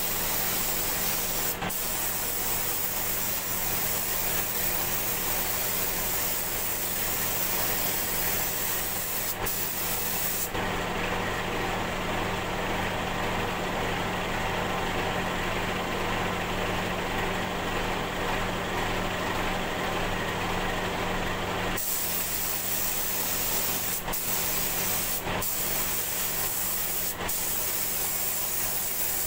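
Paint spray gun hissing continuously with a steady low hum underneath. The hiss goes duller for about eleven seconds in the middle and cuts out for an instant a few times near the start and end.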